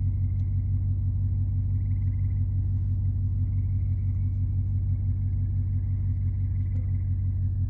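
An engine idling steadily with an even, low hum.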